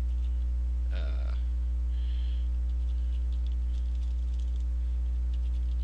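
Steady electrical mains hum from the recording chain, with faint computer keyboard clicks as a word is typed. A short vocal sound comes about a second in.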